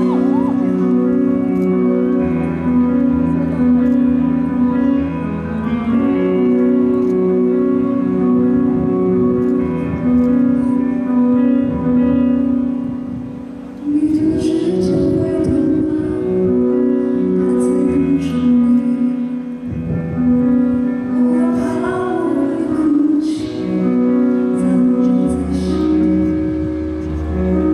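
Music: a pop song with sustained synth chords, a bass line and some singing. It quietens a little before halfway, then comes back in abruptly at full level.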